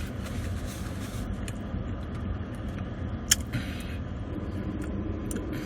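A person chewing a mouthful of sandwich and fries, with a few short crunchy bits and one sharp click a little over three seconds in, over a steady low rumble.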